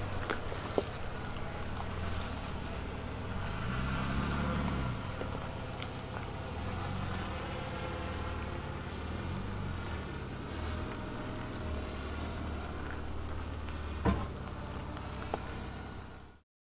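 Ford Ranger Raptor pickup engine running at low speed as it crawls over a rocky trail, with a brief rev a few seconds in. Sharp knocks of stone against tyres or underbody, the loudest one near the end, before the sound cuts off suddenly.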